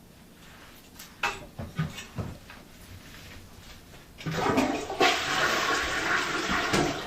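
A few knocks and clunks, then about four seconds in a toilet flushes with a loud rush of water that keeps going.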